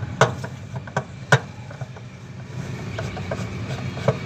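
Screwdriver clicking against a washing machine's pulley nut as it is pushed into place: four sharp clicks, the loudest about a quarter second and just over a second in, over a steady low hum.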